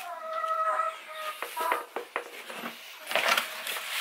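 A chicken gives a drawn-out, steady-pitched call in the first second. After that, dry mixed grain rustles and crunches as a hand stirs and levels it in a plastic feeder box, with a louder rustle a little after three seconds.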